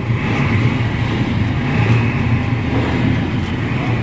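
Royal Enfield Scram 411's 411 cc single-cylinder engine running with a steady low note.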